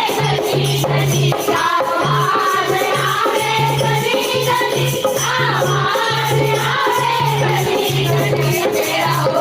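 Kirtan: a group singing a devotional bhajan to a steady beat, with rattling, jingling hand percussion.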